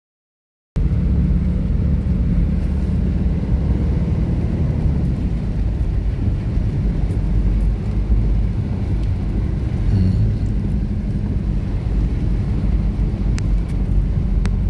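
Steady low rumble of a moving vehicle, cutting in abruptly about a second in after dead silence.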